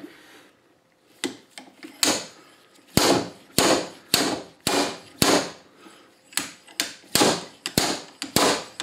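Repeated sharp metal-on-metal clacks, about a dozen spaced roughly half a second apart from about two seconds in: the sliding weight of a slide hammer puller slamming against its stop while pulling a stuck shaft seal out of a Ford power steering box's valve housing.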